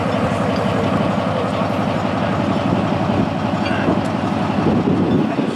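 Engine of a Northwest 80D crawler crane running steadily under load, a loud, fast, even rumble.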